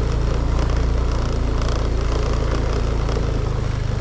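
Motorcycle engine running steadily at low speed, a constant low drone.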